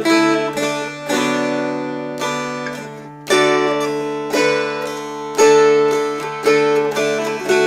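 Two mountain dulcimers strummed together, playing a melody over a steady drone; each strum rings out and fades before the next.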